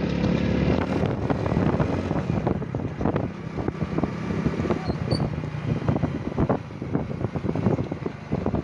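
A vehicle engine running steadily as it moves ahead along a road, with wind rushing and buffeting on the microphone.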